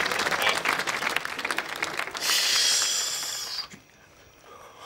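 Studio audience applause and laughter dying away, followed by a short burst of hiss for about a second and a half that cuts off into near silence.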